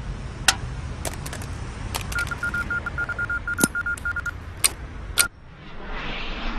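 A run of short, evenly spaced electronic beeps at one pitch, about five a second for two seconds, among scattered sharp clicks, the loudest about halfway through.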